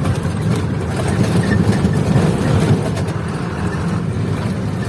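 A truck's engine running under way, heard from inside the cab as a steady low rumble mixed with road noise and frequent small rattles.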